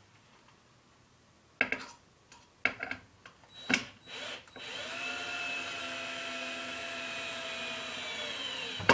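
Cordless drill driving a screw slowly into a wooden board, without pre-drilling: a few knocks as the board and drill are handled, then a steady motor whine for about four seconds that stops sharply at the end.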